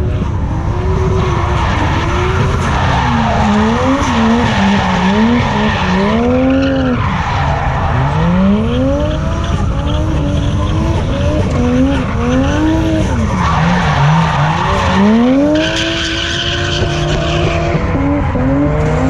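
A drift car on track with its engine revving up and dropping back again and again as it slides, its tyres squealing and skidding throughout.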